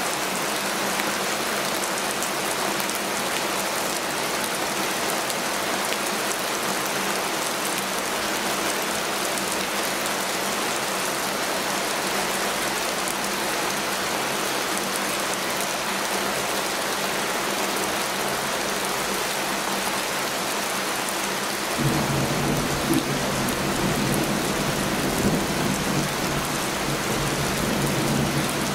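Heavy rain falling steadily, an even hiss. Late on, a low rolling rumble of thunder comes in under the rain for several seconds, then stops.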